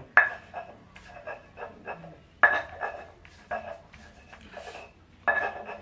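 Red chilies being ground by hand with a stone pestle in a stone mortar (ulekan and cobek): a run of irregular knocks and grinding scrapes, several a second. A few sharper, briefly ringing knocks stand out, the loudest about two and a half seconds in and near the end.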